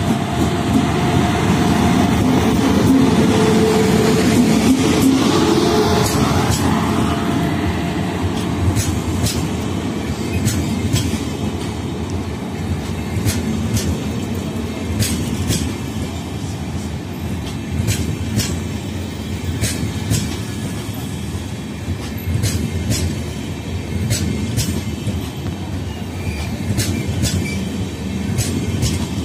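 An Indian Railways electric locomotive runs past, loud with a steady hum, as the train arrives. Then the passenger coaches roll slowly by with a continuous rumble and repeated sharp clicks of wheels crossing rail joints.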